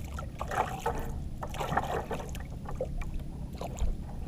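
Irregular knocks and scuffs in the hull of a small outrigger banka as a freshly landed dogtooth tuna struggles and is handled, over a steady rumble of water and wind.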